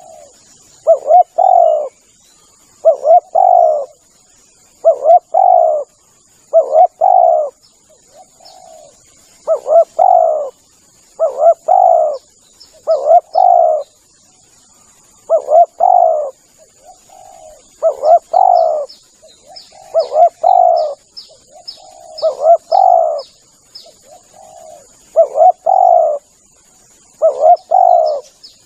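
Spotted dove singing its cooing song over and over, a loud phrase of a few coos about every two seconds. Faint high chirps of small birds sound in the background.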